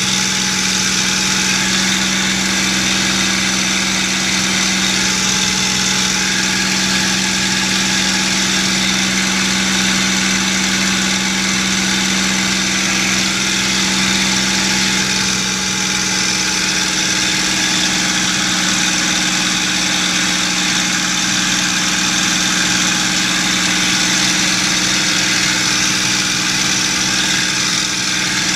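P-51D Mustang's Packard Merlin V-12 engine and propeller running steadily in flight, heard from inside the cockpit with wind rush over the canopy. The engine note shifts slightly about halfway through.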